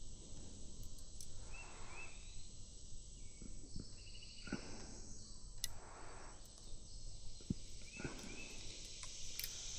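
Steady high drone of insects in the summer heat, with a few short high chirps scattered through it and some faint ticks.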